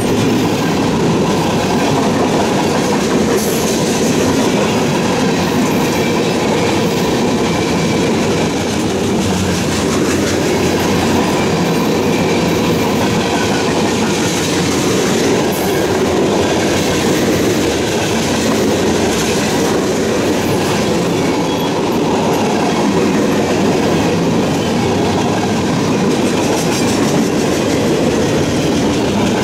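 Mixed freight train of reefers, hoppers, tank cars and boxcars rolling steadily past close by: a continuous rumble of wheels on rail with the clickety-clack of wheels over rail joints.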